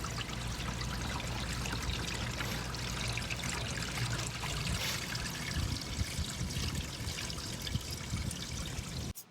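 Water pouring and trickling steadily, cutting off abruptly near the end.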